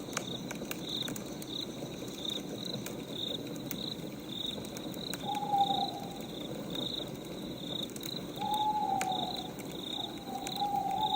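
Crickets chirping about twice a second over a wood fire's low hiss and scattered crackles. Drawn-out hooting calls come in about five, eight and ten seconds in.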